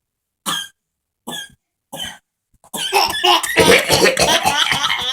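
A man giving short fake coughs, three of them spaced under a second apart. From about two and a half seconds in comes a longer, louder, rapidly pulsing stretch of coughing mixed with a baby's laughter.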